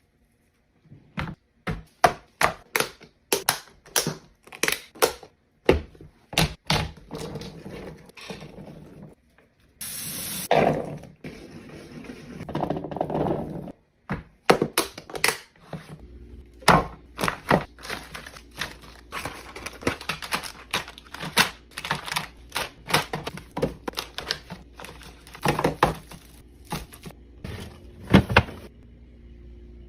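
Drinks and snack containers being set down and arranged in a fridge during a restock: a long series of irregular clicks and knocks of plastic, glass and cans, with a short rustling burst about ten seconds in.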